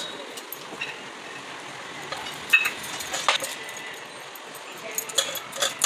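A metal spoon clinking and scraping against a cooking pan while fried rice is stirred: a few scattered clinks, the sharpest about two and a half seconds in, and a quicker run of them near the end.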